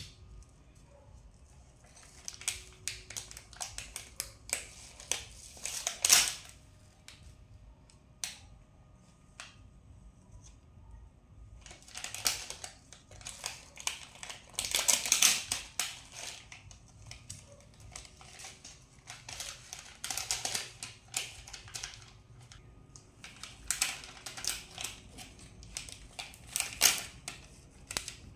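Sticker sheets crinkling and crackling as they are handled and stickers are peeled off. The rapid clicky crackles come in several bursts with quieter gaps between.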